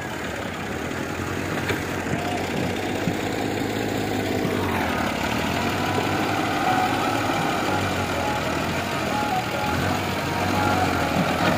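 Farm tractor's diesel engine running steadily while its front loader bucket pushes into soil. The revs climb about halfway through and stay up as the engine takes the load.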